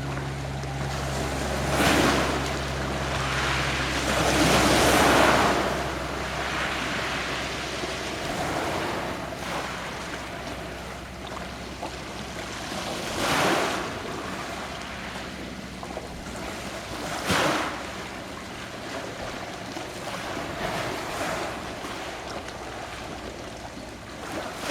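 Adriatic Sea waves washing ashore, swelling and falling away several times, with louder surges about two, five, thirteen and seventeen seconds in. A low steady hum underneath fades out in the first several seconds.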